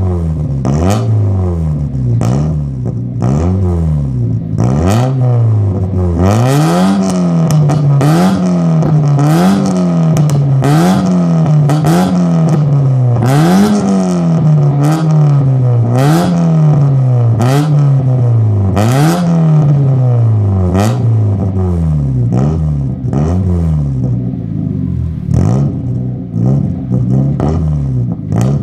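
1996 Mazda Miata's 1.8-litre four-cylinder, decatted and breathing through a hand-made stainless cat-back exhaust with a racing muffler, free-revved over and over in quick blips about once a second. Each time the revs drop, the exhaust cracks with loud pops and bangs: backfires on the overrun.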